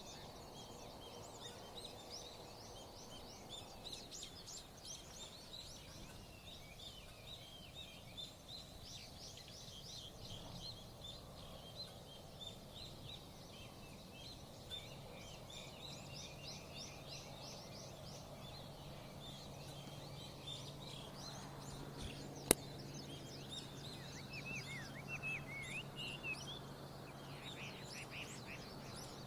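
Wild birds in a spring mountain forest chirping and twittering, a dense chorus of quick high calls. A single sharp click sounds about two-thirds of the way through.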